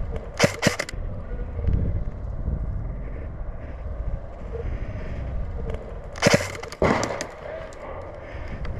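Airsoft electric rifle firing short bursts of sharp cracks, one burst about half a second in and two more around six and seven seconds in, with a low rustling rumble of the player moving between them.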